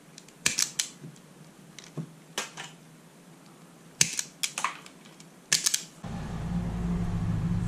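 Self-adjusting wire stripper clamping and stripping insulation off a wire: sharp snapping clicks in short clusters. About six seconds in, a steady low hum comes in.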